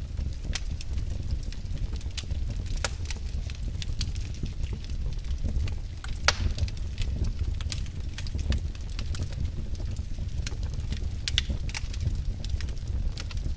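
Wood fire burning in a fireplace: irregular crackles and small pops over a steady low rumble of flames, with one sharper pop about six seconds in.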